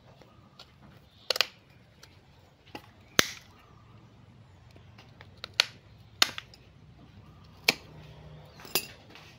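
Steel pruning shears snipping woody stubs and roots off a collected bonsai stump: about six sharp snips at irregular intervals, roughly a second or two apart.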